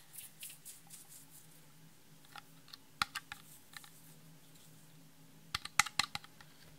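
Small clear plastic glitter jar shaken and tapped upside down over a glass dish: a light rattling at first, one sharp click about three seconds in, and a quick run of louder clicks near the end.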